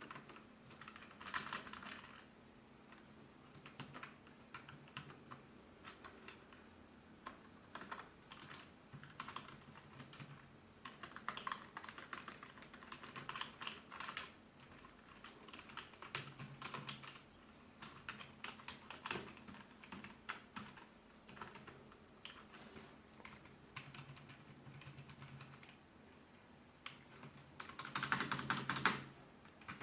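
Wireless ABNT2 office keyboard being typed on in irregular bursts of keystrokes, with a fast flurry of keys shortly before the end.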